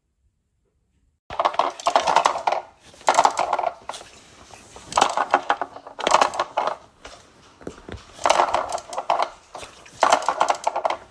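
Rapid clattering and rattling of hard objects in about six bursts of a second or so each, starting about a second in.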